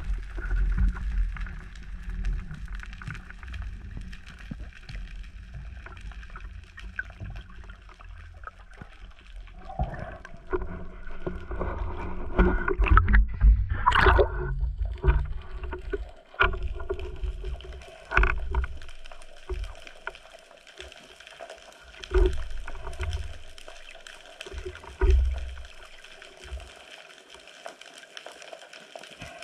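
Muffled water noise heard through an underwater camera housing as a freediver swims: a low wash of moving water with scattered knocks and clicks, busiest in the middle, with one sharp click about halfway through.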